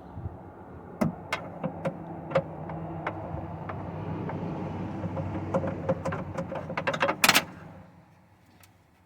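Ratchet clicking and small metal clinks as 10mm bolts are undone from the window regulator bracket inside a truck door, with a burst of rapid clicks and clatter near the end. A steady low hum runs underneath and fades out near the end.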